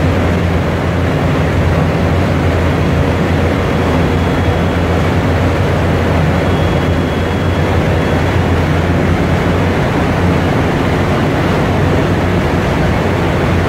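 Centrifugal cargo oil pump and its drive shaft running steadily after a mechanical seal change: a loud, even machinery hum with no knocks or changes in speed.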